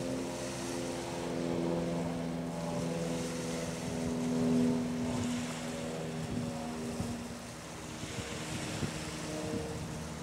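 Steady low hum of boat engines, several tones held together, with gusts of wind on the microphone a few times.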